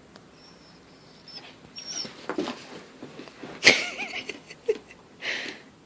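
A dog whining in thin, high-pitched squeaks, then grumbling and giving a sharp yip about three and a half seconds in, followed by a short huff near the end. It is vocalising at its owner to get its toy thrown.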